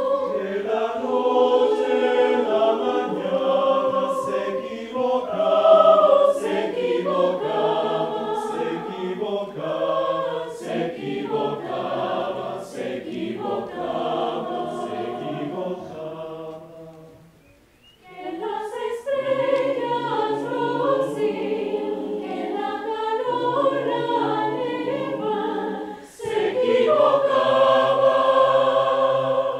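Mixed choir of women's and men's voices singing in parts, breaking off briefly about 17 seconds in and then singing on.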